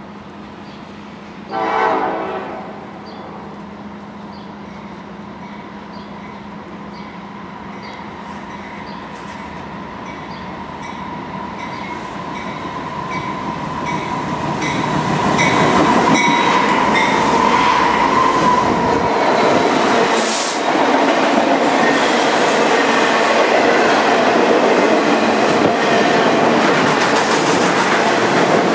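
Norfolk Southern freight train powered by GE Dash 9-40CW and SD70M-2 diesel locomotives: one short blast on the lead unit's K5LLA air horn about two seconds in, then the locomotives grow steadily louder as they approach and pass about halfway through. After that comes the steady rumble and clickety-clack of intermodal trailer cars rolling by.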